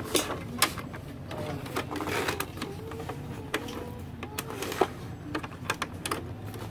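Sharp plastic clicks and taps, a dozen or so at uneven intervals, as fingers move and fit the white plastic parts of an Epson L360 printer's paper-feed mechanism, over a steady low hum.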